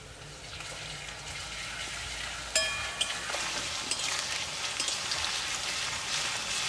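Onions, slit green chillies and garlic sizzling in hot oil in a metal kadai while a steel spatula stirs them. The spatula clanks against the pan several times, the first clank, about two and a half seconds in, ringing briefly.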